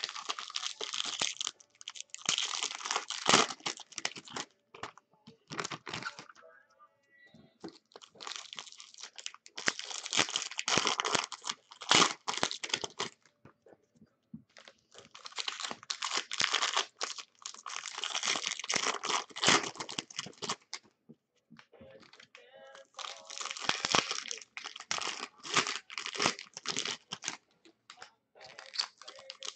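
Foil wrappers of Bowman jumbo baseball card packs being torn open and crinkled by hand. This comes in four bouts of a few seconds each, with short pauses between.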